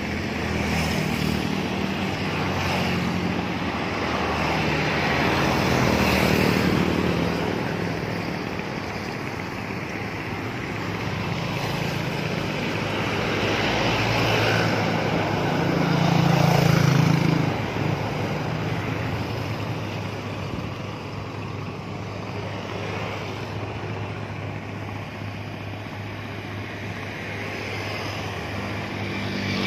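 Harbour tugboat's diesel engines running steadily as it passes close below, a low engine drone with water hiss, swelling twice.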